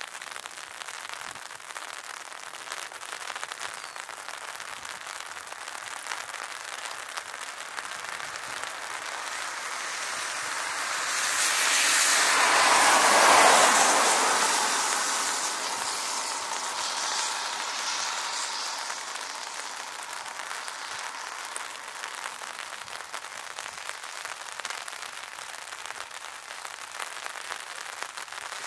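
Dassault/Dornier Alpha Jet taxiing, the noise of its twin Larzac turbofans growing to a peak about halfway through as it passes closest, then slowly fading.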